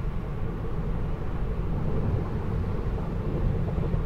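Steady low road and tyre rumble inside the cabin of a Tesla Model 3 at highway speed; being electric, the car adds no engine note.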